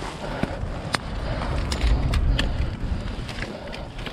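A car passing, its low rumble building to a peak about halfway through and then fading. Sharp snaps and crackles of bramble stems and twigs break in close by.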